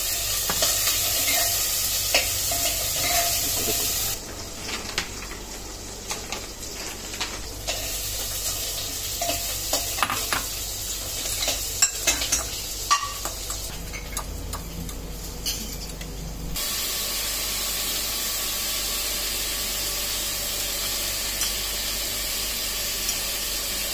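A metal fork stirring chopped tomato into beaten egg in a ceramic bowl, with many short clicks and scrapes of the fork against the bowl. A steady hiss runs underneath, dropping away about four seconds in and coming back near the end.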